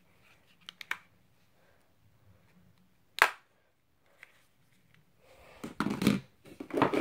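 Motorola Razr flip phone being handled: a few faint clicks, then one sharp snap about three seconds in as the phone is folded shut. Near the end comes rustling handling noise and a knock as the phone is set down on a wooden floor.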